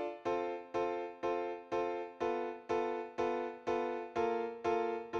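Background music: an electric piano or keyboard playing steady repeated chords, about two a second, each chord struck and fading.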